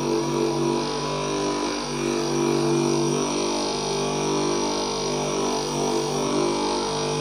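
Bench-mounted electric motor running with a pointed tool on its shaft, giving a steady hum that wavers in strength as a rubber slipper sole is pressed onto the tool. The tool is opening the strap holes to size after the sole has been cut, so that the strap goes in easily.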